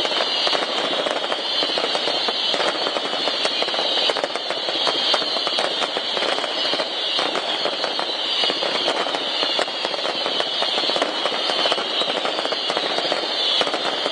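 Fireworks going off continuously in a dense, crackling barrage, with many small bangs over a steady high hiss.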